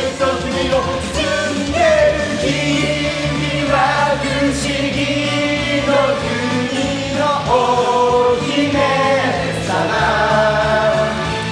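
A song from a stage musical: voices singing long held notes over instrumental backing.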